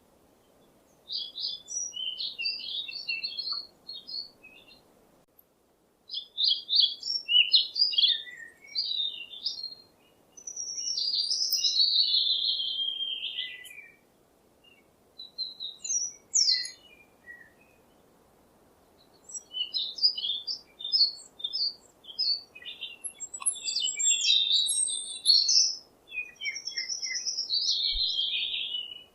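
Birdsong: phrases of quick, high chirps and trills a few seconds long with short pauses between them, one of them a long falling warble, over a faint steady hiss.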